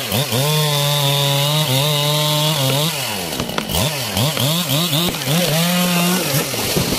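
Two-stroke chainsaw cutting into the trunk of a large tree during felling, run at full throttle. Its pitch drops when the throttle is let off about three seconds in, swoops up and down several times as it is revved again, holds high once more, and falls away near the end.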